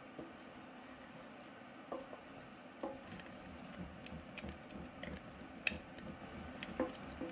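Wooden spoon stirring thick, fully cooked tapioca pudding in a stainless steel pot, with a few faint, sharp knocks of the spoon against the pot.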